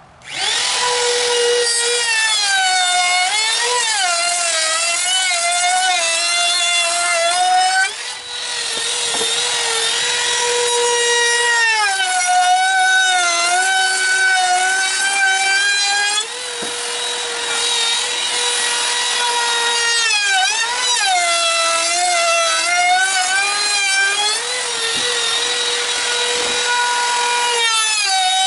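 Compact trim router with a roundover bit cutting along the edges of a pressure-treated pine post, rounding them over. Its high motor whine starts right at the beginning, sags in pitch again and again as the bit bites into the wood, and drops away briefly a couple of times.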